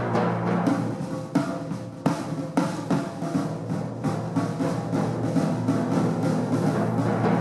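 Timpani and drum kit playing a duet: the timpani's pitched low tones sound under sharp drum strikes, with a run of separate, clearly spaced hits between about one and three seconds in.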